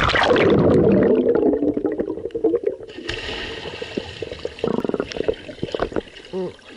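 Muffled underwater pool sound through a submerged camera: a loud gush of bubbling and gurgling as it goes under. A little over halfway in comes a rapid crackle of bubbles, as two children jump into the pool and plunge past it.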